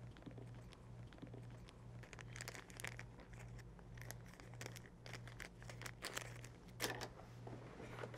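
Faint crinkling and rustling with a few small clicks, over a low hum that pulses about twice a second.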